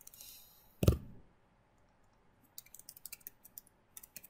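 Computer keyboard keys clicking quietly in an irregular run through the second half, after a single louder thump about a second in.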